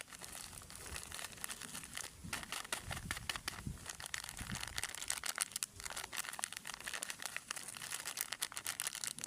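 Plastic snack wrappers crinkling as they are handled: a dense, continuous run of sharp little crackles.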